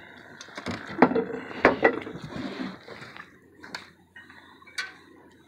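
Sharp knocks and clanks from people moving about and handling gear in an aluminium fishing boat. A handful of separate knocks, loudest in the first two seconds and sparser after.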